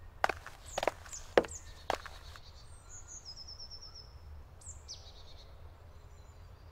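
Woodland songbirds calling: high, quickly falling chirps and a short trill of repeated notes. In the first two and a half seconds there are four sharp knocks about half a second apart, the loudest sounds here. A faint low rumble runs underneath.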